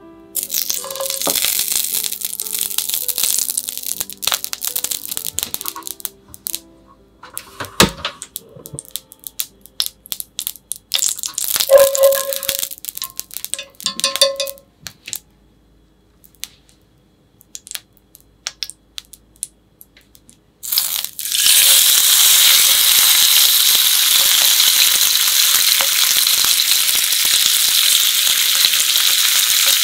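Beef suet crackling and sizzling in short spells as it is rubbed around a hot sukiyaki pan. About 21 seconds in, sliced beef goes into the greased pan and a steady, loud sizzle sets in.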